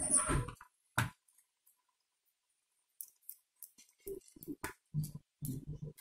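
Small plastic clicks and handling knocks from a Dell laptop's case and parts being taken apart by hand, with a silent gap of about two seconds in the middle.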